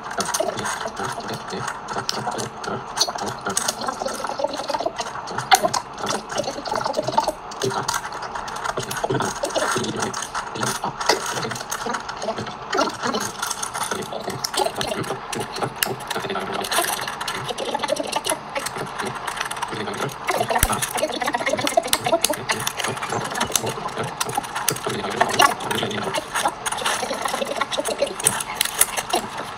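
Plastic LEGO Technic pieces being handled and pressed together: a dense, rapid clatter of small clicks and rattles.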